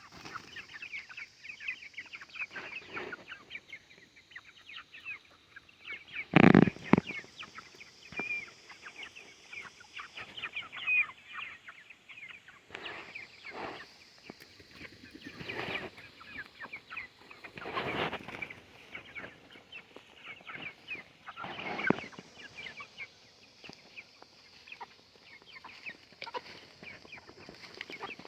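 Chickens clucking and chirping, with many short high calls and louder clucks every few seconds, and one loud, sudden sound about six seconds in.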